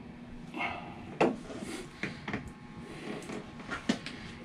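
Handling noises at the pulley end of a Westerbeke marine generator: a soft rustle, then a few short, sharp knocks and clunks as parts are moved by hand.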